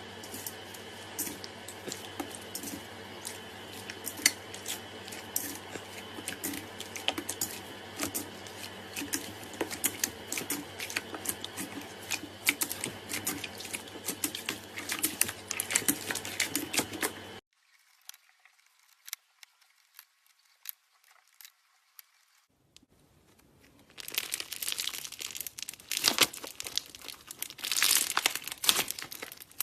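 Slime being squished and pressed by hand, giving rapid wet clicks, pops and crackles. The sound cuts off abruptly about 17 seconds in, stays faint for several seconds, then returns louder and denser near the end.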